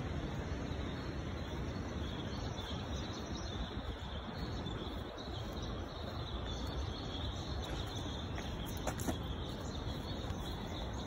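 Steady outdoor background noise: an even hiss with a low rumble underneath and a faint, steady high buzz, broken by a couple of faint clicks near the end.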